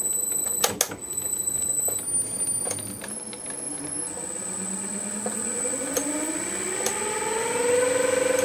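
9-inch South Bend lathe with its motor run from a variable-frequency drive, the chuck spinning while the speed is adjusted: a high electronic whine from the drive steps between pitches over the first few seconds, then the motor whine rises steadily in pitch as the speed is wound up. A couple of sharp clicks sound just under a second in.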